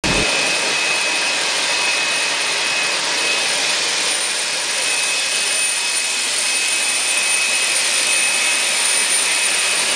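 Loud, steady jet turbine noise: an even hiss carrying two steady high whistling tones.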